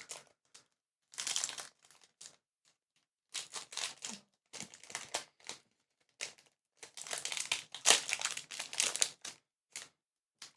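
Foil trading-card booster pack wrapper crinkling as it is handled, in several irregular bursts of rustling with short pauses between them.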